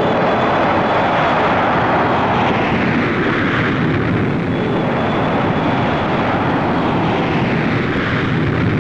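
Jet aircraft engines running, a loud steady noise that grows brighter about three seconds in and then settles back.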